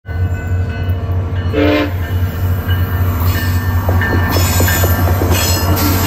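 SunRail commuter train running by with a steady low rumble, a short horn toot just under two seconds in, and a repeated short ringing tone with light clatter from about three seconds in.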